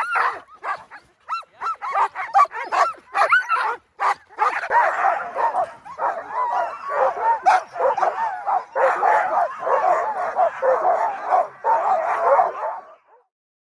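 A pack of Alaskan husky sled dogs in harness barking and yelping, the clamour of a team eager to run. Separate barks at first, then from about four seconds in a dense chorus of many overlapping voices, which cuts off a second before the end.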